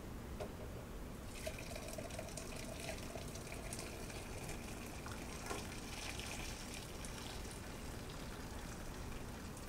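Hot, thin sauce poured from a pan into a perforated metal cone strainer, running through into a glass bowl below with a steady splashing trickle. It starts about a second in and thins out near the end as the pour tapers.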